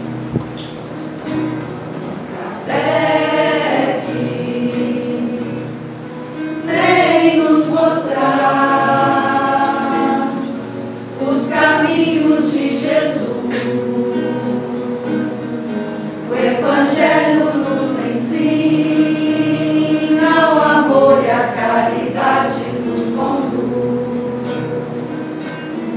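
Small mixed choir of women's and a man's voices singing a Spiritist song in phrases of a few seconds with short breaks, over a quiet acoustic guitar accompaniment.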